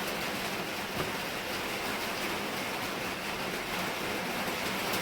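Heavy rain hammering down on the shed, a steady hiss, with a light tap about a second in.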